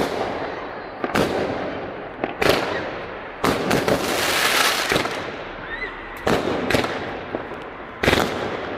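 Fireworks going off: loud sharp bangs about once a second, each trailing off in an echo, with a dense crackling stretch in the middle.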